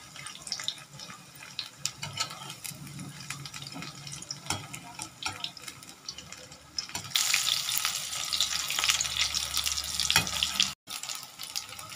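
Onion pakoras deep-frying in hot mustard oil in a wok: a steady crackling sizzle with many small pops. It swells louder for about three seconds past the middle, breaks off for an instant, then goes on more quietly.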